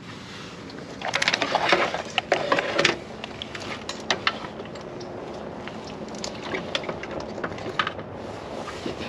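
BMW E46 engine wiring harness being handled and pulled out by hand: plastic connectors and loom clattering and rustling. The clatter is densest from about one to three seconds in, then thins to scattered clicks.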